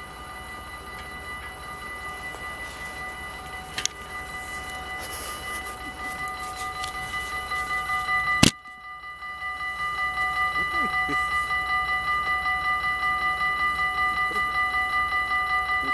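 Railway level-crossing warning bells ringing in a steady, rapid repeating pattern. The crossing is stuck closed with no train coming, which the filmer suspects may be a fault. A sharp knock comes about halfway through, and after it the bells ring louder.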